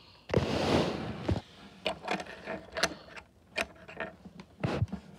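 Loose plastic Lego pieces rattling as a hand rummages through them for about a second, followed by scattered sharp clicks and taps of bricks being picked up and set down on a table.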